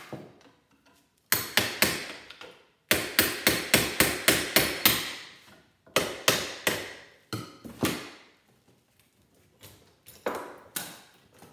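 Hammer blows on metal parts of a microwave oven being broken apart for scrap, in quick runs of up to about four strikes a second, each with a brief metallic ring. The longest and loudest run comes about three to five seconds in, with shorter runs after it and a pause before the last few blows.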